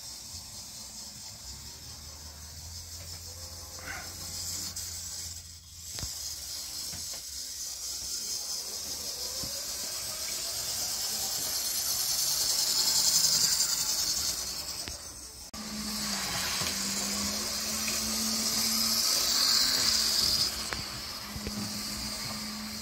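Model diesel locomotive running around the track: a steady whirring hiss from its small electric motor and wheels on the rails, swelling twice as it passes close by. A steady low hum sets in about two-thirds of the way through.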